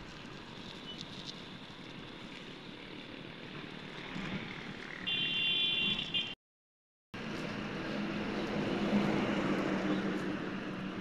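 Street traffic noise with the steady hum of passing motor vehicles. About five seconds in, a short high-pitched tone sounds for about a second. Then the sound drops out briefly and returns louder, with a low engine hum that swells and fades.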